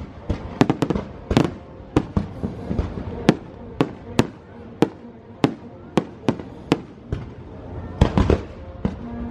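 Aerial fireworks display: an irregular series of sharp bangs, roughly two a second, with a short lull about two-thirds of the way through before a quick cluster of bursts.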